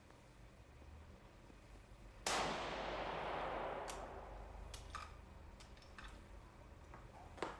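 A single rifle shot about two seconds in, its echo dying away over a second and a half, followed by a few sharp metallic clicks as the bolt is worked.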